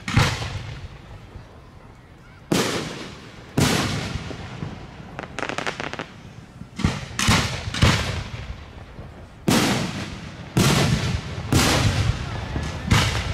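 Aerial firework shells bursting, about ten sharp booms spaced irregularly, each trailing off in a long echo. There is a short run of crackling about five seconds in.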